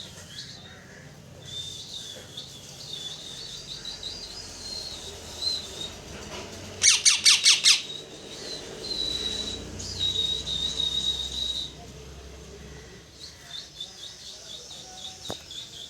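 A parrot chirping in rapid high trills, with a run of about five loud, shrill squawks about seven seconds in and some longer held whistle-like notes after.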